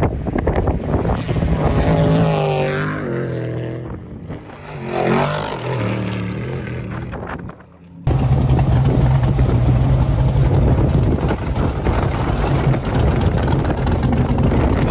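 Off-road prerunner trucks accelerating away, their engines revving with the pitch rising and falling twice. About eight seconds in it changes abruptly to a truck engine idling steadily close by.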